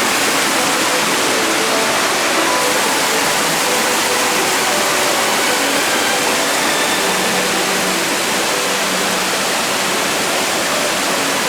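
Small waterfall and brook water rushing steadily, an even, unbroken hiss.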